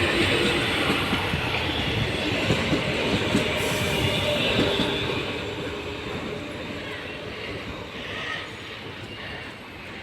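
Electric commuter train of Rodalies de Catalunya passing, its wheels running on the rails. The sound fades steadily over the second half as the train moves away.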